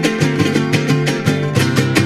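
Son jarocho string ensemble playing instrumentally: jaranas strummed in a fast, even rhythm, about five or six strokes a second, with a guitarra de son and a bumburona picking notes underneath.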